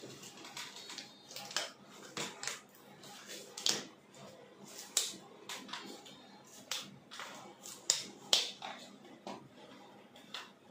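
Disposable gloves being pulled onto the hands off-camera: a series of sharp, irregular snaps and clicks, roughly one every second.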